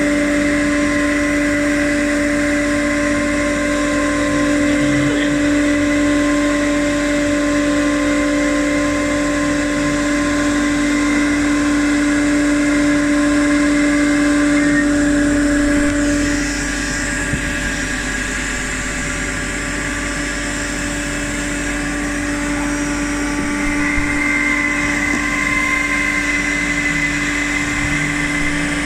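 Steady whine of the electric drive motors on CNC-controlled stage wave trucks running. The lowest tone fades and the sound eases a little about halfway through, then builds again near the end.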